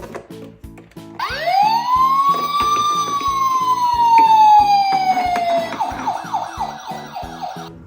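A toy vehicle's electronic siren winds up about a second in and then slides slowly down in pitch. Near the end it switches to a fast yelp of quick falling sweeps, several a second. Background music with a steady beat plays underneath.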